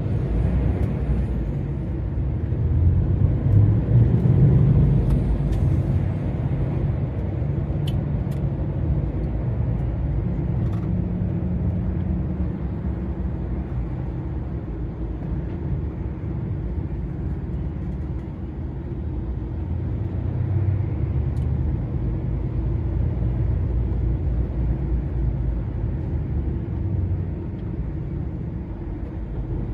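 Steady low rumble of a DAF XF 480 lorry cruising on the motorway: its six-cylinder diesel engine and tyre noise, swelling a little a few seconds in. A couple of faint ticks are heard around a quarter of the way through.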